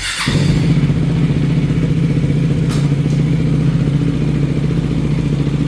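The freshly rebuilt engine of a 390 motorcycle starts right at the beginning and then idles steadily, with one short click about three seconds in. This is the engine's first run after the rebuild.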